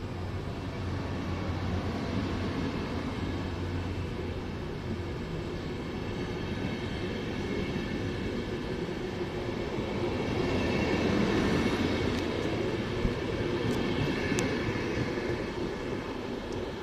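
VR double-deck passenger train rolling past along a station platform: a steady rumble of wheels on rails that grows louder about ten seconds in, with a few sharp clicks near the end.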